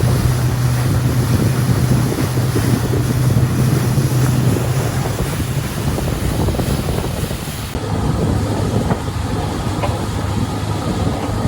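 A boat's engine running with a steady low drone, under loud wind buffeting the microphone and rushing water. About eight seconds in, the drone drops slightly in pitch and the noise changes.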